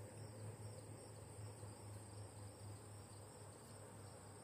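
Faint outdoor ambience: insects chirring in a steady high band, over a low steady hum.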